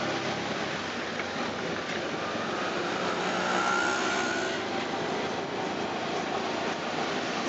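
Auto rickshaw's small engine running and the rattle of the ride, heard from inside its open-sided cabin, mixed with the noise of surrounding street traffic.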